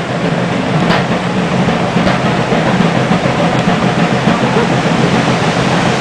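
Water pouring over a low mill dam, a steady rushing sound.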